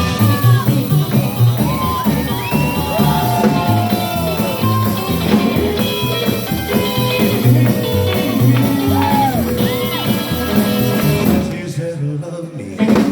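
Live rock and roll band playing an instrumental break over a steady drum and bass beat, with sliding, bending melody lines on top. Near the end the band drops back and the sound thins out, leaving a single sharp accent.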